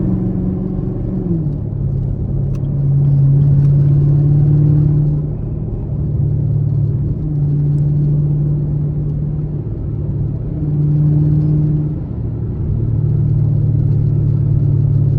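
Camaro SS V8 exhaust droning at a steady cruise. Its note is raised briefly at the start and drops back about a second and a half in, then it swells louder and softer every few seconds as the throttle is eased on and off.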